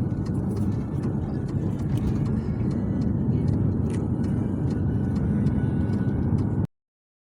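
A moving car's road and engine noise, a steady low rumble that stops abruptly near the end.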